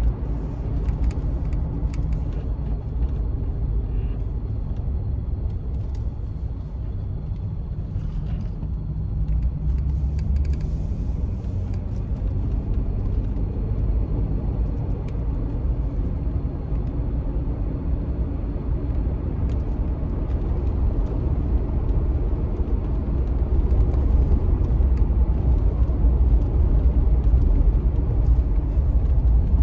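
Steady low rumble of a car being driven, heard from inside the cabin: engine and road noise, growing a little louder near the end.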